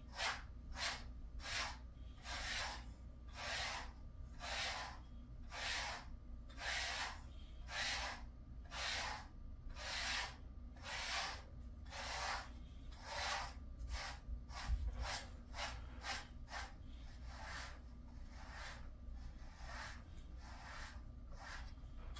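Brush strokes through a Jindo dog's thick coat: a steady run of short raspy strokes, about two a second.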